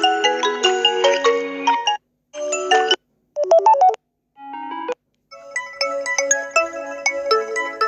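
Samsung Galaxy A30 ringtones playing one after another: short melodies of pitched notes, each cut off by a brief silence before the next begins, with five different tunes in turn, the last one longer than the three short snippets before it.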